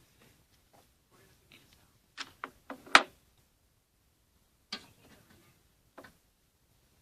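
A few sharp taps and clicks: a quick run of four about two seconds in, the last and loudest about three seconds in, then two more single clicks later on.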